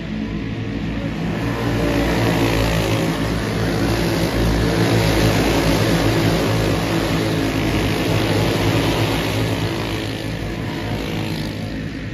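A field of dirt-track race cars at racing speed, many engines running hard together. The sound builds about two seconds in as the pack comes past and eases off after about ten seconds as it moves away.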